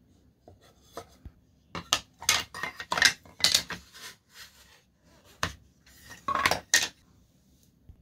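Thin wooden birdhouse-kit panels being pulled apart and set down on a hardwood floor: a run of light wooden knocks and clatter, then a few more knocks a little later.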